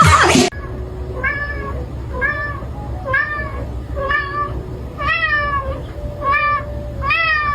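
A cat meowing over and over: short meows that rise and then fall in pitch, about one a second, over a low steady hum.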